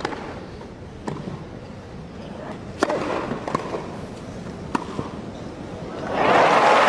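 Tennis rally on a grass court: a string of crisp racket-on-ball hits about one to two seconds apart. About six seconds in, a crowd breaks into loud applause and cheering as the point ends.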